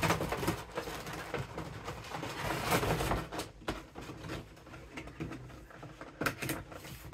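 Cardboard toy box and its packaging being handled and pushed about: a run of rustles, scrapes and small clicks, busiest in the first three seconds, with a few sharper knocks a little after six seconds.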